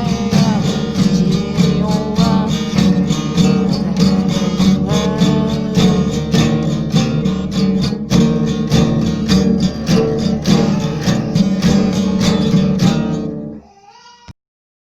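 Country-style music led by strummed acoustic guitar with a steady beat, possibly with a sung line, fading near the end and then cutting off into silence.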